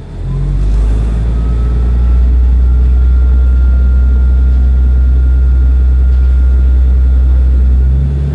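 Diesel railcar's engine running hard as the train pulls away from a station: a loud, deep, steady drone with a faint whine that rises and then holds. The drone drops off sharply near the end as the power eases.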